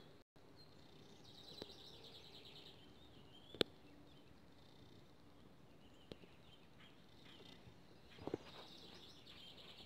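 Faint background with a bird's high, rapid trill, heard twice: about two seconds in and again near the end. A single sharp click a little over three and a half seconds in is the loudest sound, with a few softer clicks around eight seconds.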